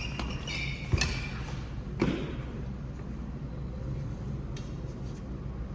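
Badminton rackets striking the shuttlecock: two sharp hits about a second apart, with shoe squeaks on the court floor during the first second. A steady low hum runs under them.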